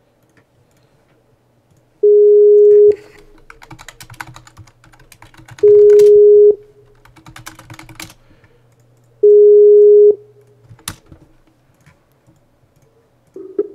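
Skype outgoing-call ringback tone: three one-second beeps at one steady mid pitch, about three and a half seconds apart, while the call rings unanswered. Computer keyboard typing between the beeps, and a single sharp click near the end.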